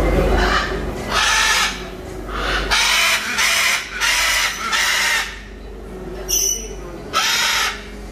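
Macaws squawking: a run of about six loud, harsh calls, each under a second long, with short gaps between them.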